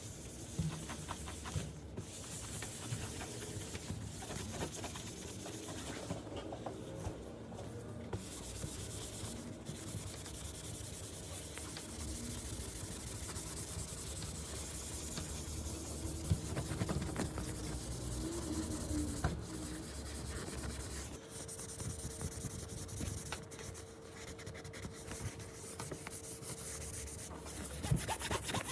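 Continuous rubbing and scrubbing against a surface, as in cleaning the iMac's parts by hand.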